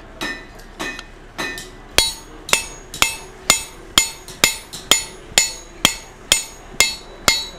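Hand hammer striking a hot punch held in a handle, driving the eye through a square steel bar on the anvil. A few lighter taps come first, then from about two seconds in steady hard blows about two a second, each with a bright metallic ring.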